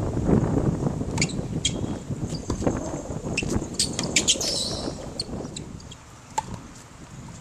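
Tennis ball struck by racquets in an outdoor rally, a few short sharp hits. Birds chirp and wind rumbles on the microphone, the rumble easing off in the last couple of seconds.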